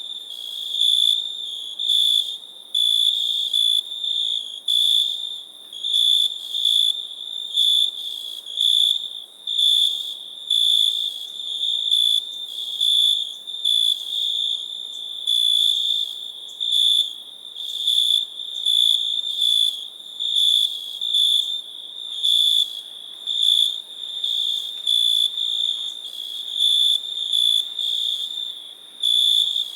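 Cricket chirping: a high, single-pitched trill repeated in chirps about once a second.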